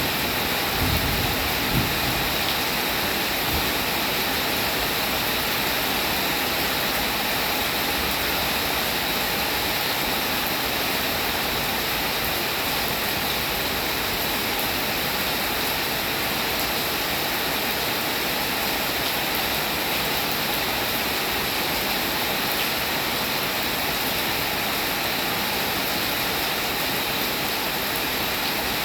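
Steady, even rain falling in a continuous hiss. A low rumble, the tail of thunder, dies away within the first couple of seconds.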